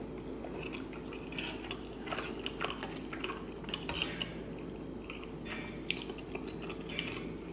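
Wooden chopsticks clicking and scraping against a frying pan as they pick through saucy noodles and rice cakes. The clicks come in scattered light strokes over a faint steady hum.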